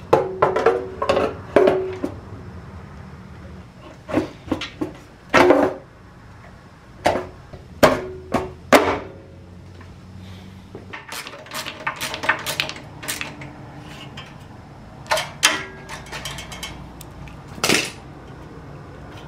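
Irregular clicks, knocks and clatter of hard plastic and metal parts being handled and fitted on a Predator 212cc go-kart engine as its fuel tank is set in place.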